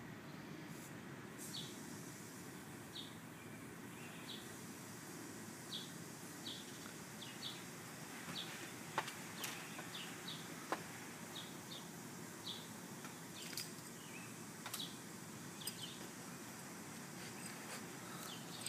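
Outdoor ambience: a steady low background hum with short, high chirps recurring irregularly throughout, and a few sharp clicks near the middle.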